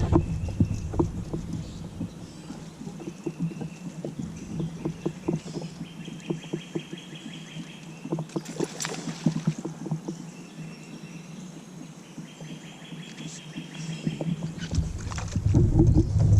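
Scattered knocks and clicks of a fishing kayak and tackle being handled, with two short buzzing rattles along the way. A low wind rumble on the microphone fades after the start and comes back near the end.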